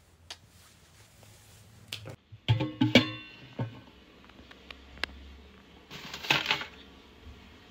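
Clattering knocks of a steel tin being handled, loudest about two and a half to three and a half seconds in, with a brief metallic ring, then a short rustle about six seconds in.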